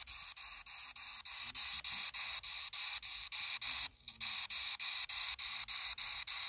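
P-SB7T spirit box sweeping the FM radio band: a steady hiss of radio static chopped by short gaps about four times a second as it jumps from station to station, with a brief dropout about four seconds in.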